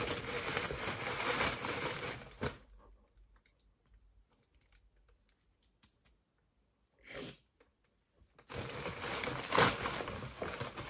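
Gift wrapping and tissue paper being crumpled and torn, stopping about two and a half seconds in. After a quiet stretch there is one short sniffle from the woman crying, and the paper rustling starts again about two seconds before the end.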